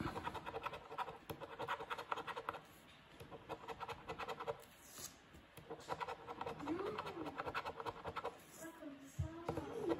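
A large metal coin scratching the silver coating off a paper scratch-off lottery ticket in quick back-and-forth strokes, with short pauses about three and five seconds in.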